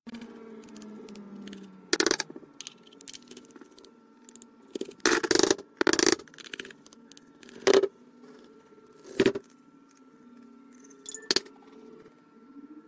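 Hard plastic clicking and knocking, with about six sharp loud clicks spread irregularly, as an LED bulb is pushed into a white plastic test socket and the socket's switch is pressed. A faint steady hum runs underneath.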